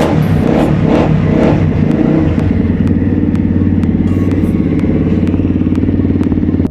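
A 150 cc pit bike's single-cylinder four-stroke engine running through its restored exhaust with a freshly fibre-packed silencer. It is blipped in quick, regular revs about twice a second for the first two seconds or so, then settles to a steady idle.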